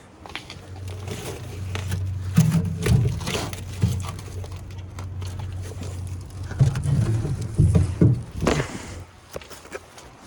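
A steady low motor hum for most of the stretch, stopping near the end, with knocks and scrapes over it.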